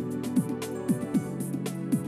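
Instrumental background music: sustained tones over a steady beat of drum-like strikes about twice a second.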